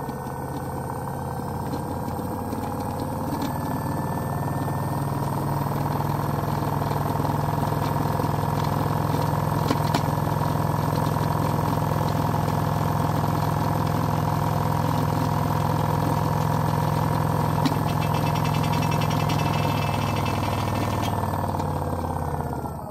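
Hoverboard hub motor spinning free on a brushless ESC at overvoltage (up to about 82 V input): a steady electric hum and whine that rises slightly in pitch as the speed climbs to about 1,270 rpm, then falls in pitch near the end as the power is cut back.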